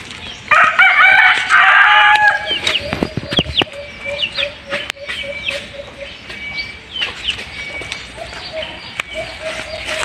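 A rooster crows once about half a second in, loud and about two seconds long. After it come runs of short, evenly repeated low notes and high, falling bird chirps.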